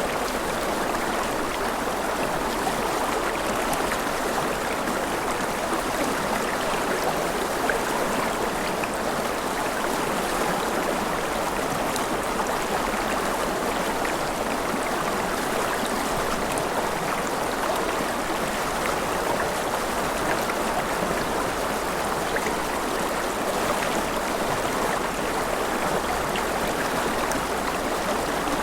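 Mountain river rushing steadily over rapids: an even, unbroken water noise.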